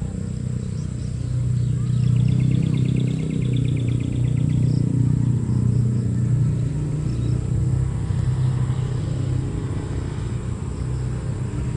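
A low engine rumble that swells a couple of seconds in and eases off again, like a motor vehicle passing. A short high rasping trill sounds for about three seconds near the start.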